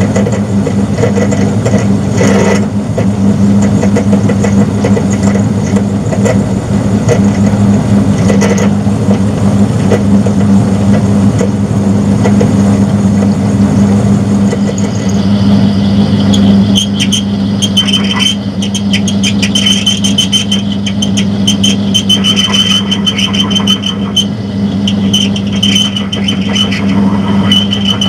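Metal lathe running steadily with a low motor hum. About halfway through, a high-pitched whine and a run of crackles join in, most likely the cutting tool working the metal.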